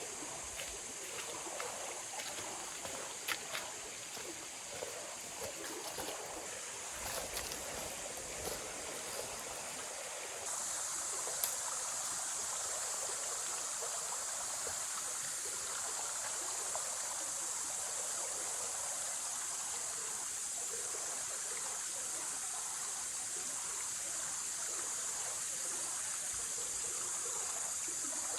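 Heavy rain falling in a tropical forest, a steady hiss with scattered sharp ticks in the first ten seconds or so, turning louder in a sudden step about ten seconds in.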